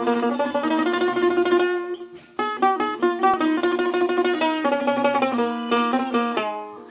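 Dotara, the Bengali long-necked plucked lute with metal strings, played solo: a quick plucked melody over a repeated low note, with a short break about two seconds in before the tune picks up again.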